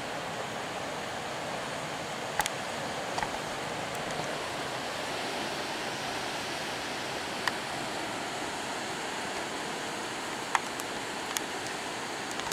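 Steady rushing of a flood-swollen river's fast, muddy current, with a few sharp clicks scattered through.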